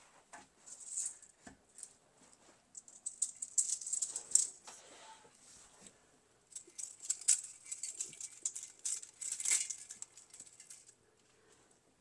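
Dried bittersweet vines being handled and worked into place, the brittle stems crackling and rustling while dried berries break off and patter down. The rustling comes in several bursts and dies down near the end.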